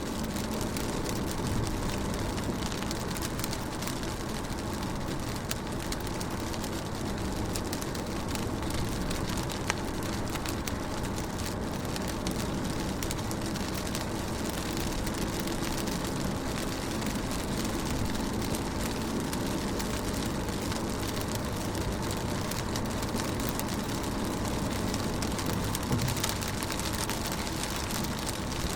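Steady rain falling on a car, with many small ticks of raindrops striking the window glass.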